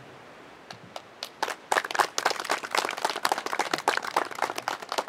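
A small group of people clapping their hands. It starts with a few scattered claps about a second in and quickly becomes brisk, uneven applause.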